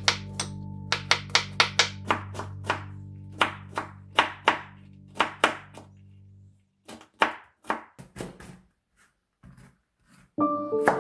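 Kitchen knife chopping red cabbage on a cutting board, quick knocks about three a second, over a held background music chord. The music stops about two-thirds of the way in and the chopping goes on more sparsely; piano music begins near the end.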